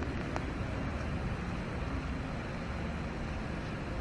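Steady outdoor ambience in a downpour: a low traffic rumble under an even hiss of rain on wet pavement.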